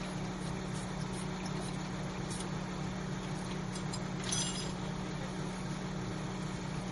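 An engine running steadily at an even idle, with a brief metallic clink about four seconds in.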